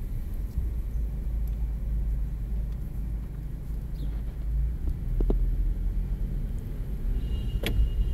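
Steady low rumble of a car driving on the road, with a sharp click and a short high tone near the end.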